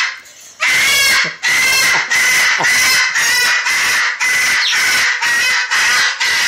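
Pet parrot screeching harsh, loud calls over and over, about two a second, telling off the household cat.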